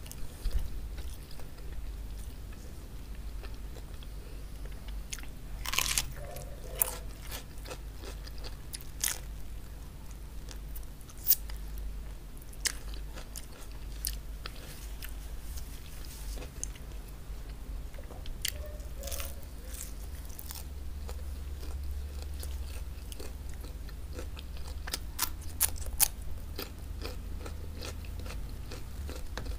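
Close-miked chewing and crunching of crispy fried chicken hawawshi, with sharp crisp bites scattered through the chewing.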